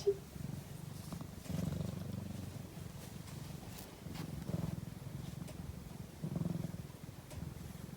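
Domestic cat purring in its sleep: a low buzzing purr that swells and fades with its breathing several times. A short high squeak sounds right at the start.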